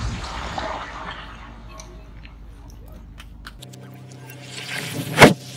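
Crackling rumble of a brick chimney's falling debris and dust, fading. Near the end, a single sharp bang.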